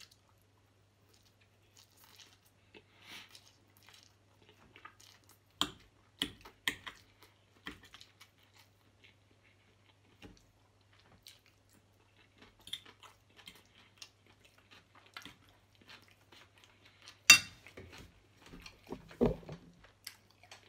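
Close-miked chewing of seafood spaghetti, with scattered small wet mouth clicks over a faint steady low hum. A single sharp click about three-quarters of the way through is the loudest sound, followed shortly by a brief lower mouth noise.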